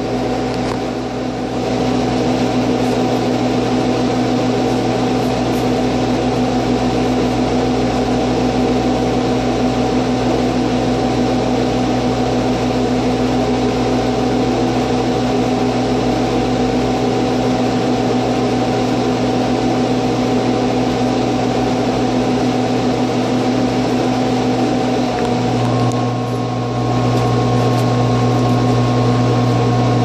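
Continental 2R commercial refrigerator's refrigeration unit running: a steady electric hum from the compressor with the rush of the condenser fan. About five seconds before the end the low hum grows heavier and a higher whine joins in.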